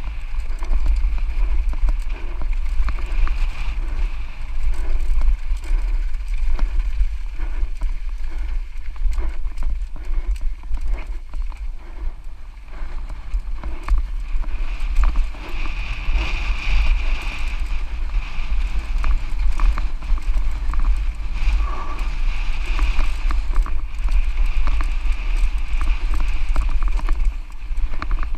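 Santa Cruz Nomad mountain bike descending a rough trail at speed: tyres on dirt and rock, with a constant clatter of sharp knocks and rattles from the chain and frame. Wind rumbles on the microphone throughout.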